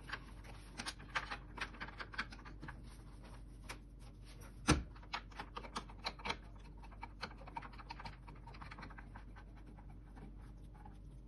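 Plastic parts being handled and fitted back inside an opened Unicum Nero coffee machine: a run of small clicks, taps and scrapes, with one sharper knock about five seconds in.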